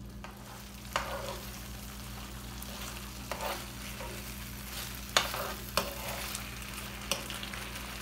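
Chicken in a thickening cornstarch gravy sizzling in a frying pan on high heat as the water cooks off, stirred with a metal spoon that scrapes and knocks against the pan about five times, loudest about five seconds in.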